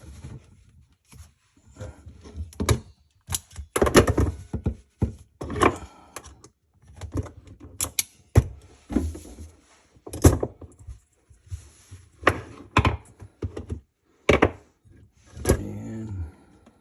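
Handling noise of a dishwasher inlet valve and its wiring being fitted by hand: irregular knocks, clunks and small clicks, with rustling between them.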